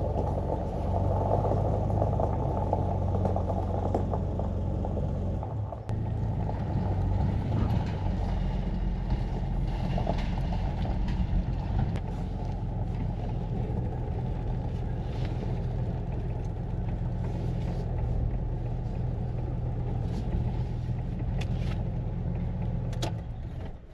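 Jeep engine and road noise while driving, a steady low drone with a short dip about six seconds in.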